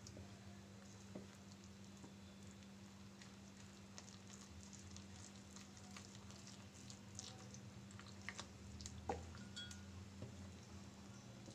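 Faint scraping and light ticks of a silicone spatula stirring thick semolina and gram-flour batter in a glass bowl, over a steady low hum; the loudest tick comes about nine seconds in.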